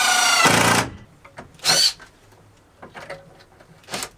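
Cordless drill-driver driving a screw through a metal angle bracket into a wooden batten. It runs for just under a second, its pitch sinking a little as the screw seats, then gives one short burst about a second later.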